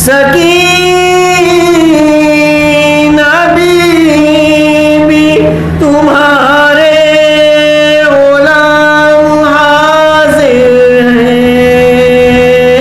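A man singing a soz, a Shia mourning lament, unaccompanied through a microphone, in long held notes with slow turns of pitch, pausing briefly for breath a few times. A steady low hum lies underneath.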